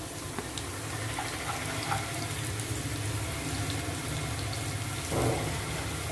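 Chopped carrots and onions sizzling in hot oil in a pan, a steady frying hiss with scattered small crackles. A short louder burst of noise comes about five seconds in.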